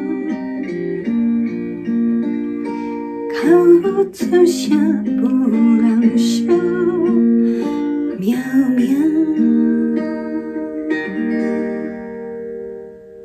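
A woman's voice singing two short closing phrases of a Taiwanese Hokkien ballad, about three and eight seconds in, over a backing track of held chords. The backing holds its last chord and fades out near the end, closing the song.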